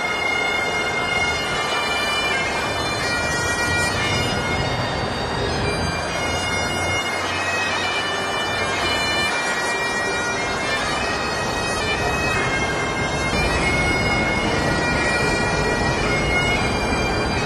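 Bagpipes playing a tune of held notes.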